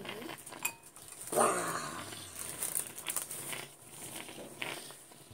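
Rustling and crinkling of paper tissues being pulled from a soft plastic tissue pack and handled. About a second and a half in, a short vocal sound from a person cuts across it.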